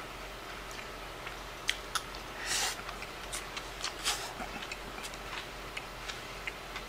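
Eating at a bowl of rice: scattered small clicks of chopsticks against a ceramic bowl, with two short breathy mouth noises as a mouthful is taken, about two and a half and four seconds in.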